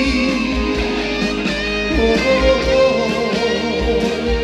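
Instrumental break of a Korean trot song over a concert sound system: an electric guitar lead with bending, wavering notes over bass and a beat.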